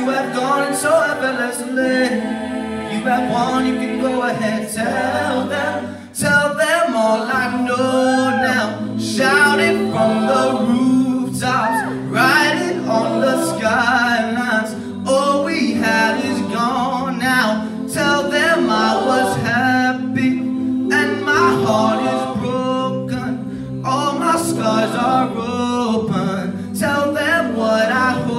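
An a cappella group singing a pop ballad: a male lead voice carries the melody over sustained backing harmonies from the rest of the group, with a brief drop in level about six seconds in.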